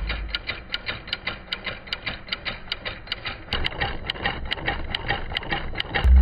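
Homemade 3D-printed inline-four solenoid engine running: the solenoid plungers and the cam-driven switch click several times a second in a quick, slightly uneven rhythm. A loud low rising sweep sets in at the very end.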